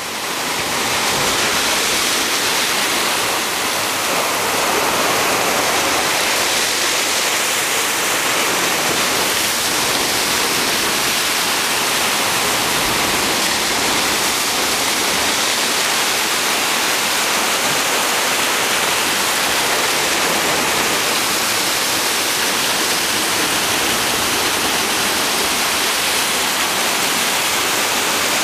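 Ocean surf breaking and washing over rocks below a cliff: a loud, steady rush of water.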